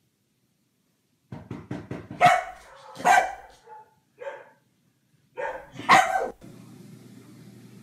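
Dog barking, a quick run of short yaps about a second in, then several louder single barks.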